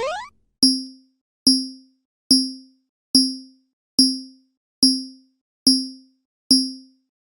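A short rising glide in pitch ends just after the start. Then come eight evenly spaced percussive hits, about one every 0.85 s. Each hit is a sharp knock with a low ringing tone that dies away quickly, and the run stops about a second before the end.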